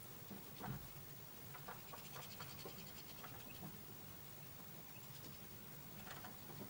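Goldfinch and bullfinches pecking and scrabbling in a plastic feeder tray of sunflower seeds: scattered faint taps and scratches, the sharpest under a second in, with a brief wing flutter near the end.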